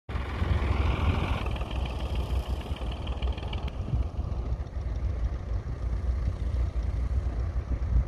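Vintage McCormick International tractor engine running steadily under load as it pulls a plough through the soil, with a low, even throb.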